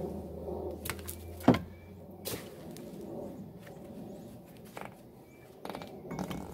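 Scattered metal clanks and knocks as a truck's front brake caliper assembly is handled and fitted over the rotor, with one sharp, loud knock about a second and a half in.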